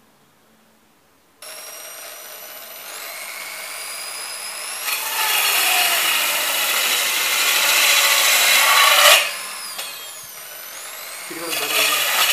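A corded electric drill spinning a circular saw blade starts up about a second in, its motor whine climbing in pitch. Then the blade cuts through a thin wooden strip for about four seconds, much louder, before the drill runs free again, its whine dipping and rising.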